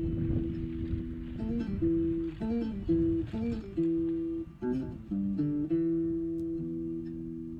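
Outro music: acoustic guitar picking and strumming held notes, fading toward the end.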